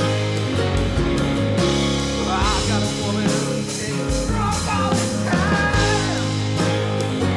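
Rock-and-roll background music with a steady beat.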